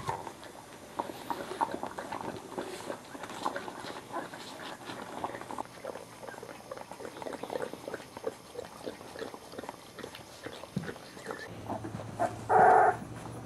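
Boxer puppies and an adult boxer mouthing and moving about, making a run of small irregular wet clicks and smacks. About a second before the end one of the dogs gives a single short, loud yelp.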